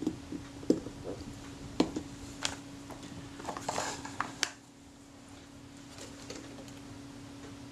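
Light clicks and taps of a lens element and small cleaning tools being handled, with a brief scratchy rub of a cotton bud about halfway through, over a steady hum; the clicks stop after about four and a half seconds.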